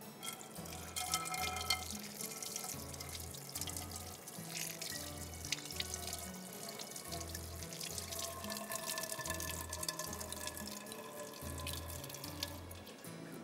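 Water running from a kitchen tap into a sink, a steady rush with small clatters, over background music with a steady bass beat.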